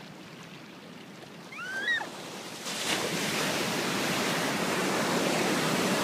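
Shallow water lapping quietly, then about three seconds in a wave breaks and foaming surf washes in around the microphone as a steady rushing. A short rising cry sounds just before two seconds in.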